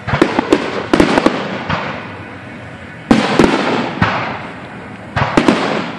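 Aerial firework shells bursting in clusters of sharp bangs, each cluster trailing off in a fading rumble. The bangs come in groups through the first second and a half, again about three seconds in, and near the end.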